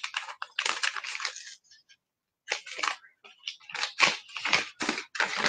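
Brown wrapping paper around a book rustling and crinkling as it is unfolded by hand, in irregular bursts with a short pause about two seconds in.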